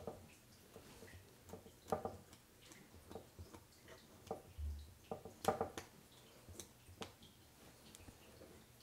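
Faint, irregular scrapes and clicks of a painting tool being pressed and dragged through cold wax and oil paint on a panel, with louder strokes about two and five and a half seconds in.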